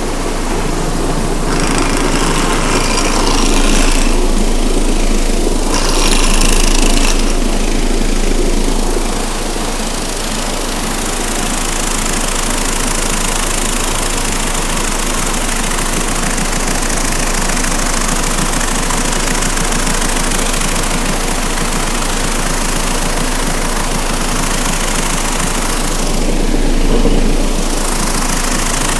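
Giant GB3 vibratory tumbler running: abrasive media and metal parts churning and rattling in the vibrating bowl over a steady low motor hum, deburring and polishing the parts.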